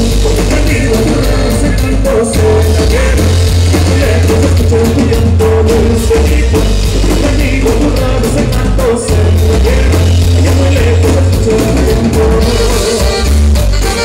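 Loud live norteña band music for dancing, with a steady beat, bass and singing.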